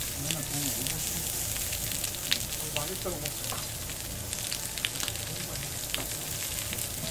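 Lamb sizzling and frying on a hot grill pan: a steady hiss broken by frequent sharp crackles and pops of spitting fat.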